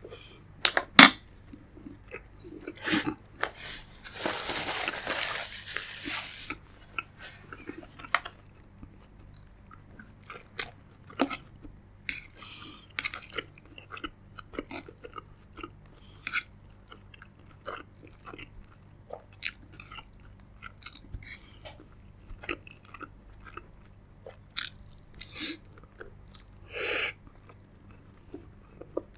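Close-miked eating: a person chewing a mouthful of food, with crunching, heard as uneven mouth clicks. The loudest is a sharp click about a second in, and a denser, noisier stretch lasts about two seconds from about four seconds in.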